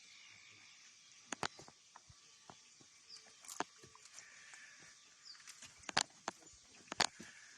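Faint bird chirps over a light steady hiss, broken by several sharp clicks or taps, the loudest twice near the end.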